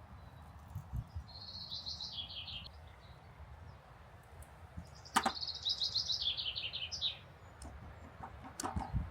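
A songbird singing two phrases, each a quick run of notes falling in pitch, the second longer than the first. A sharp click comes just before the second phrase.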